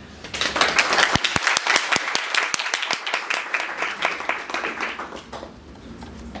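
Audience applauding with many hands clapping, starting just after the opening and dying away after about five seconds.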